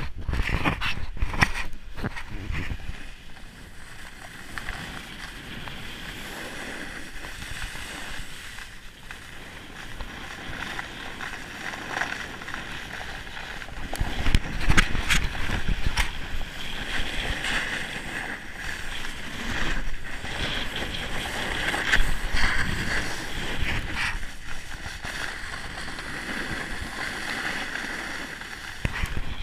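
Snowboard sliding and carving over packed snow: a continuous scraping hiss with knocks and bumps, rougher and louder about halfway through, with wind buffeting the microphone.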